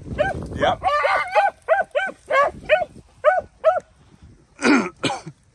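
Hunting beagles barking on a rabbit's trail: a quick run of short, evenly repeated yelps, about three a second, which stops after about four seconds, then two louder, harsher barks near the end.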